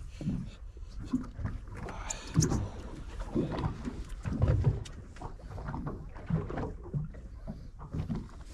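Water lapping and slapping irregularly against a small boat's hull, loudest twice, about two and a half and four and a half seconds in.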